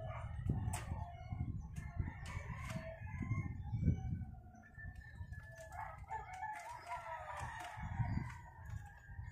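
Birds calling in the background, with one longer call from about six to seven and a half seconds in, over low rumbling noise and occasional knocks.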